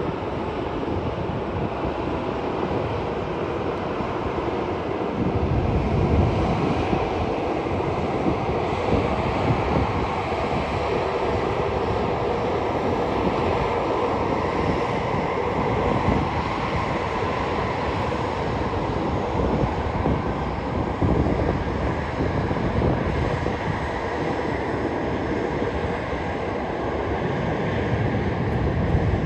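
Jet engines of an Airbus A330-300 (Pratt & Whitney PW4000 turbofans) running steadily with a faint whine, under gusting wind rumble on the microphone.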